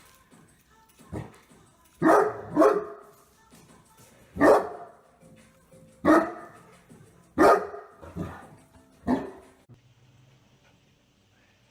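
A dog barking: about eight single barks spaced a second or so apart, stopping about nine seconds in.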